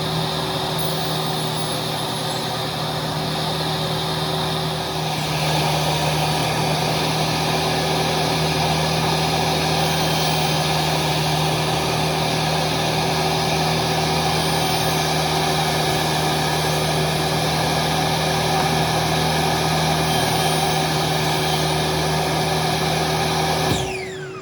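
Electric woodworking power tool running steadily with a steady motor hum; about five seconds in it gets louder and noisier. Near the end it is switched off and the motor spins down, its pitch falling.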